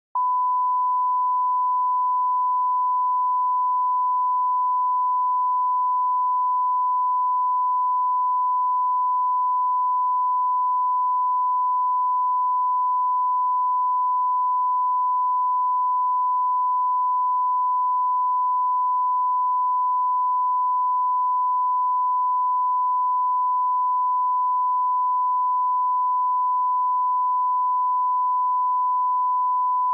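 Steady 1 kHz reference tone: a single pure, unbroken beep at constant level, which cuts off abruptly at the end. It is the line-up tone that runs with colour bars at the head of a broadcast programme tape, for setting audio levels.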